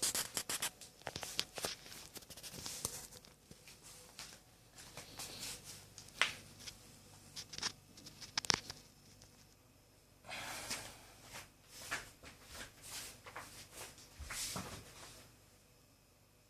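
Scattered small clicks, taps and rustling of hands handling objects, with a longer rustle about ten seconds in.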